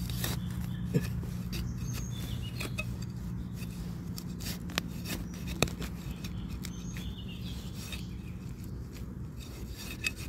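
Rustling and rubbing of leaf litter, grass and soil as a hand pulls termite mushrooms from the ground and bunches them, with a few sharp clicks. A steady low hum runs underneath.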